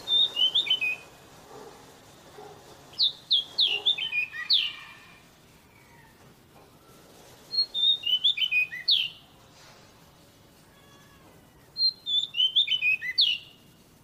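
Magpie-robin singing: four short phrases of quick, falling whistled notes, about one every four seconds.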